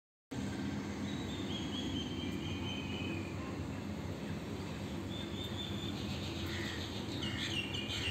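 Steady outdoor background noise with faint, high bird chirps, a run of them about a second in and more near the end.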